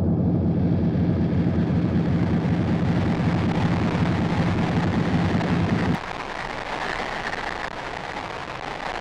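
Noise and drone music: a dense wall of droning noise, heavy in the low end. About six seconds in the low rumble cuts off suddenly, leaving a quieter, thinner hiss.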